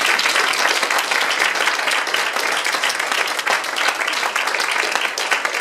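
Audience applauding, many hands clapping together.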